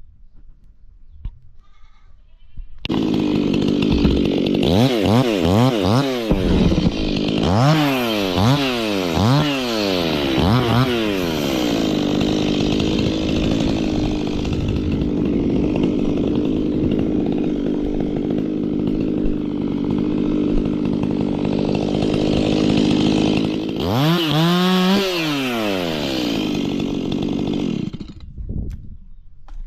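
Stihl chainsaw starting up about three seconds in, revved up and down several times, then held at steady high revs for about ten seconds while cutting wood. It revs a few more times and cuts off near the end.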